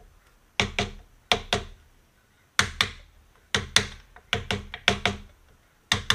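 Small mallet tapping a wooden dowel to drive a muzzleloader trigger assembly, coated in inletting compound, down into its inlet in a wooden gunstock. There are about a dozen sharp knocks, mostly in quick pairs.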